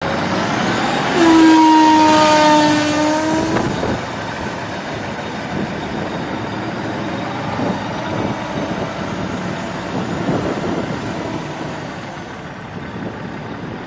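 A truck horn sounds once, starting about a second in and lasting about two and a half seconds, a steady tone falling slightly in pitch. Under it and afterwards runs a steady vehicle running noise.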